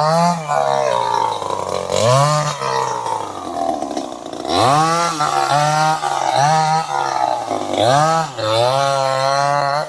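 Chainsaw engine being revved again and again: three times its pitch climbs sharply, holds at high speed for a second or so, then drops back.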